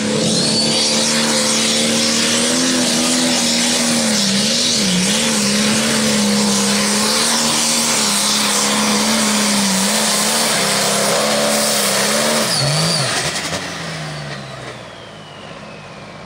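Turbocharged diesel engine of an International Limited Pro Stock pulling tractor at full throttle, dragging the weight sled, loud and steady, with its pitch wavering briefly about four seconds in. About thirteen seconds in, the throttle comes off at the end of the pull and the engine drops away, with a falling whine as it winds down.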